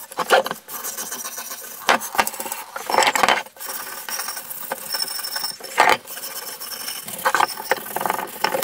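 Stiff hand brush scrubbing wet metal vise parts in a sink, in irregular scrapes with some splashing of water.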